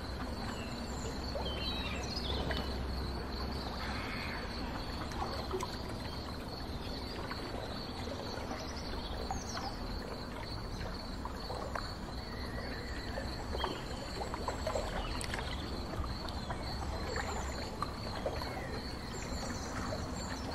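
Ambience on a river boat: a steady low rumble under water washing against the hull. Above it run a steady high pulsing trill and scattered short bird chirps.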